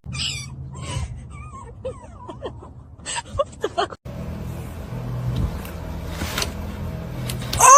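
Cats mewing: several short rising and falling calls, then, after a break, a low steady hum with one loud rising meow near the end.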